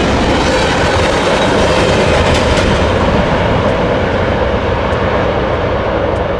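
Freight train of covered hoppers and boxcars rolling away along the track, a steady rumble of steel wheels on rail. Its hiss dims after about three seconds as the tail of the train recedes.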